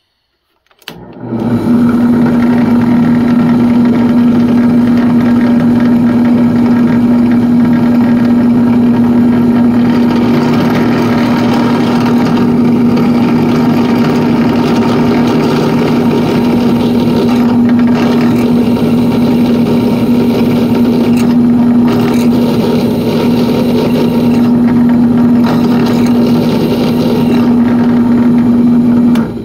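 Electric drill running at a steady, even pitch while drilling out a seized screw in an antique revolver's frame. It starts about a second in and stops just before the end.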